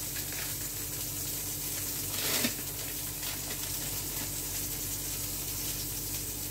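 Steady kitchen background hiss with a low hum throughout. About two seconds in comes a short crinkly rustle of plastic film as a wrapped cheese slice is handled.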